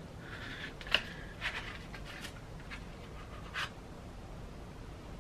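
Light handling noise as a small jewelry gift box is opened and a clear display case is lifted out: a few soft clicks and rustles, the sharpest about a second in.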